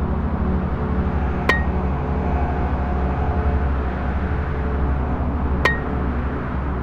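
Two sharp metallic strikes of a metal tool on stone, about four seconds apart, each with a brief clinking ring, over a low steady drone.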